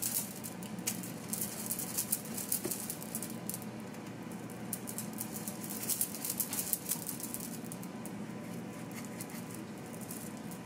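A knife peeling the hard green rind off strips of kabocha pumpkin: quick, crisp scraping crackles in spurts, thinning out near the end, over a steady low hum.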